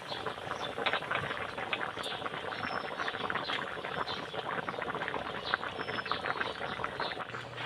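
Coconut-milk broth with whole tilapia and vegetables boiling hard in a metal pan: a steady, dense bubbling and popping. The dish is nearly cooked.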